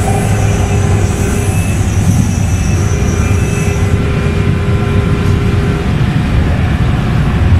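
Kinki Sharyo SLRV light-rail car running along the track, heard from inside the car: a steady rumble of wheels on rail with a thin whine from the traction motors on top. The whine fades away between about four and six seconds in.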